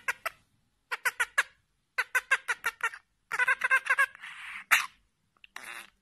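Budgerigar chirping in quick runs of short, high chirps, four and then six in a row, going into a longer warbling chatter about three seconds in. A single sharp click near the end is the loudest moment.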